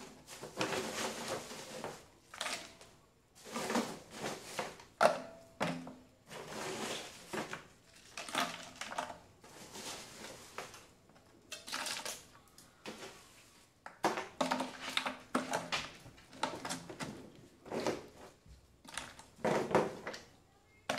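Ice cubes clattering and crunching as handfuls are dropped in to layer ice around the ice-cream canister, in repeated irregular bursts about a second apart.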